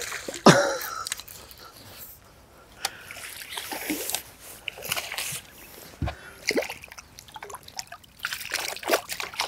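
Water splashing and sloshing in irregular bursts as a hooked black bass is fought to the boat and landed.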